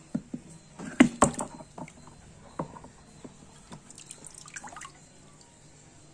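Shallow water in a plastic bucket splashing and dripping as an Amboina box turtle is dipped into it and lifted out. The loudest splashes come about a second in, with smaller drips and splashes later.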